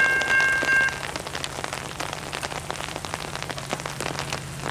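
Railroad crossing warning bell ringing, then cutting off about a second in as the crossing gate settles horizontal. After that, steady rain with raindrops ticking close by.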